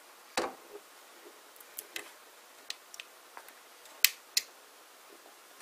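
Sharp plastic clicks and knocks as the control panel of an inkjet platewriter is worked loose and lifted off its housing, a scattering of light ticks with two loud clicks in quick succession about four seconds in.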